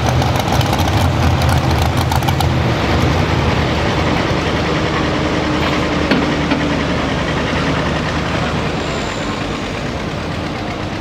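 Modified 4x4 pulling truck's engine idling steadily after its pull. The low engine note weakens near the end.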